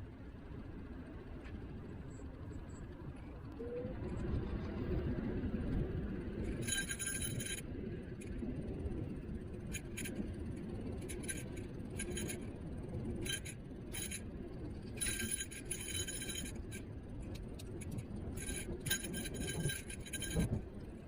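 Wind and road rumble on a moving electric kick scooter, with a light metallic jingling rattle that comes in repeated short bursts, as over bumps.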